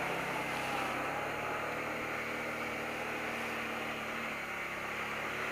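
Kawasaki Brute Force ATV engine running steadily while riding, with water spraying off the tyres in the first seconds as the quad crosses a flooded stretch.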